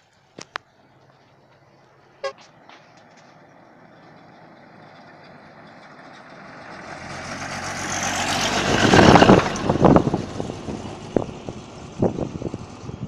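A heavy goods truck approaching along the road and passing close by: its engine and tyre noise builds over several seconds to a loud peak about nine seconds in, then falls away. A few short sharp clicks come before it.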